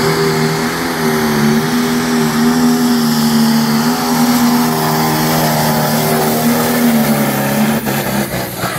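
A 3,000-horsepower John Deere pulling tractor's engine runs at full throttle, hauling the brake sled. It makes a loud, steady, high-pitched engine note that wavers slightly, then drops away near the end as the run finishes.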